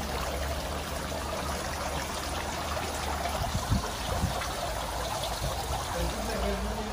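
Steady trickling of water from a small rooftop plunge pool, its overflow running into the grated gutter at the pool's edge. A few soft thumps come about halfway through.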